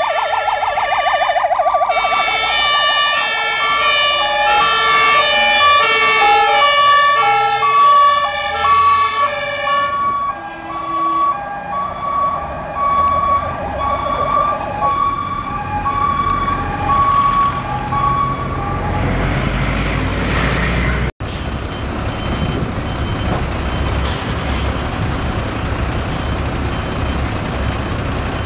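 Fire engine sirens on an emergency run: a fast warble at first, then a loud pattern of alternating horn tones that fades over the next several seconds as the trucks pass. After an abrupt cut, a fire truck's engine runs steadily with faint regular beeps.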